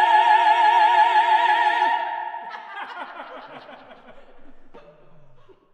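A vocal quartet of soprano, mezzo-soprano, tenor and bass-baritone holds a final chord with wide vibrato, cuts off about two seconds in, and the sound rings on briefly in the church's reverberation. Then comes soft laughter and chuckling.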